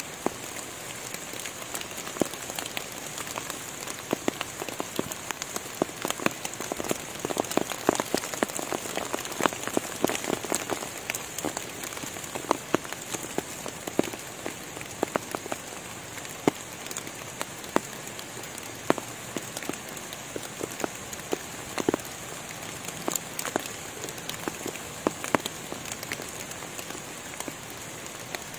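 Rain falling in a forest: a steady hiss with many sharp drips of drops striking leaves, heaviest a quarter to a third of the way in.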